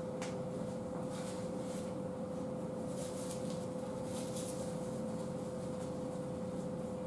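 Faint rustling of a nylon barber cape and hair being handled as the cape's collar is fastened at the neck, over a steady electrical hum.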